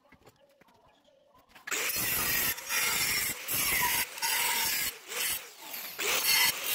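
Angle grinder with a thin cut-off disc cutting through thin-walled square steel tubing. The cutting starts about a second and a half in and breaks off briefly several times as the disc is lifted and set back into the cut.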